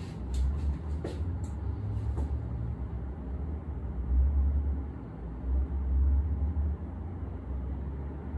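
A few brief rustles and light clicks, like clothing being moved aside, in the first two seconds, over a low, uneven rumble.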